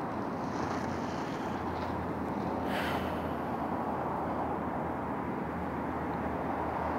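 Steady outdoor background rumble with a low hum, and a brief soft hiss about three seconds in.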